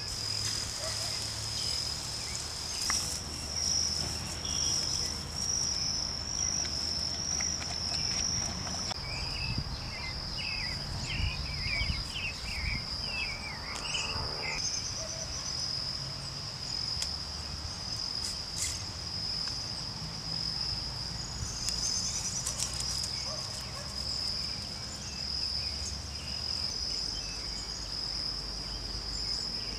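Insects chirring in a steady high drone, with a brief run of short chirps about ten to fourteen seconds in.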